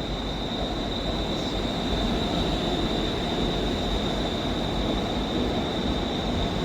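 ScotRail Class 380 electric multiple unit pulling out, with a steady high-pitched wheel squeal over its rumbling running noise.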